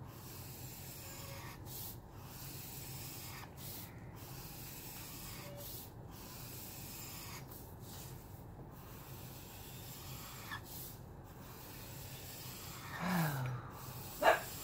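Alcohol marker's felt nib rubbing over paper in slow strokes with short pauses about every one to two seconds; the Caliart marker is running low on ink. Near the end comes a short falling groan-like sound, then a brief sharp squeak, the loudest sound here.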